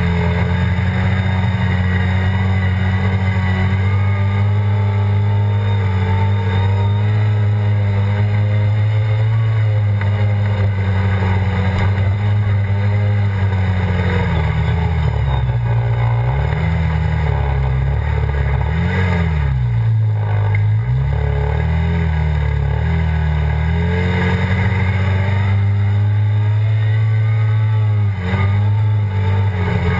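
ATV (quad) engine running at speed over a sandy trail, heard from on board, with wind noise across the microphone. Partway through the engine speed falls and picks up again several times as the throttle is eased off and reopened, then holds steady; it dips briefly once more near the end.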